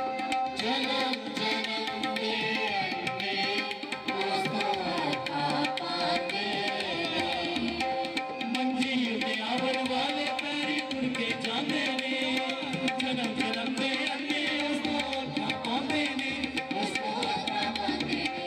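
Music with tabla drumming under held melodic notes, running without a break.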